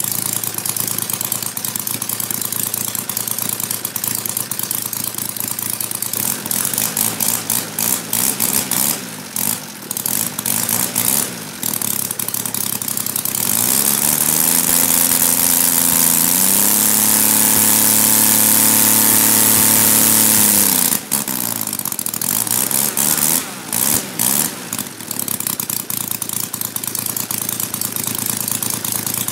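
Kolm 150cc inline three-cylinder model-aircraft engine turning a propeller on its first run. It idles, runs unevenly with short throttle blips, then about fourteen seconds in revs up to high speed and holds there for several seconds as a static run-up for a prop pitch test. Then it throttles back down to idle.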